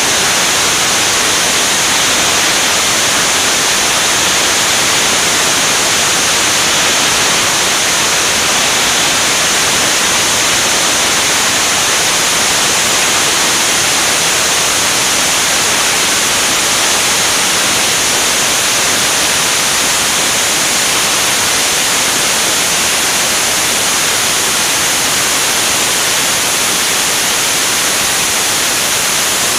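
Airflow rushing over a camera mounted on the wing of an L-39 Albatros jet in flight: a steady, loud hiss that does not change.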